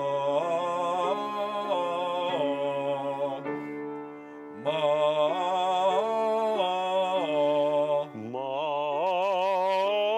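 A male voice singing a vocal warm-up exercise over piano accompaniment: two short phrases that step up and down a scale, then a held note with wide vibrato from about eight and a half seconds in.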